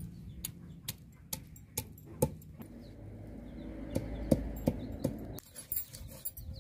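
Stone muller knocking and rubbing on a flat stone grinding slab (sil-batta) as onion and spices are crushed to a wet paste. Sharp knocks come about two to three times a second over a low grinding rub.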